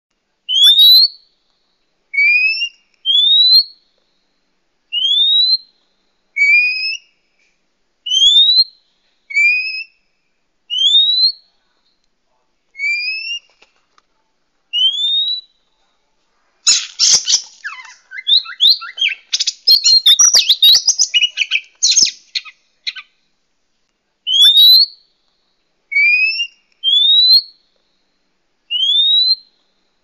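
Oriental magpie-robin (kacer) calls, used as a bird-trapping lure: a series of clear rising whistles, about one a second, often a lower note followed by a higher one. Near the middle they break into about six seconds of rapid, scratchy chattering, and the whistles then resume.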